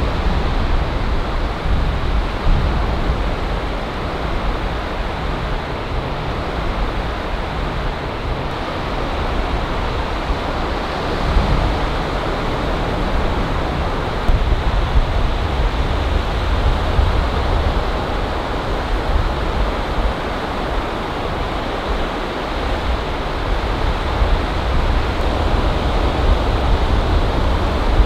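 Ocean surf breaking and washing in over a shallow beach: a steady rushing wash with a strong low rumble underneath.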